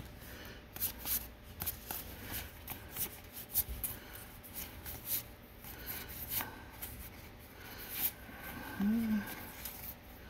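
Magic: The Gathering trading cards being flicked and slid one by one through the hands as a booster pack is gone through: a string of short papery snaps and rubs, irregular, a couple a second. A brief low hum of voice comes near the end.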